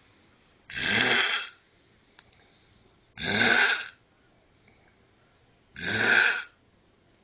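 Loud snoring: three snores, each under a second long, coming about every two and a half seconds in an even rhythm.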